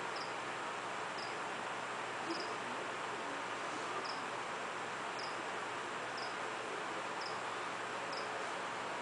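An insect chirping, short high chirps about once a second, over a steady hiss.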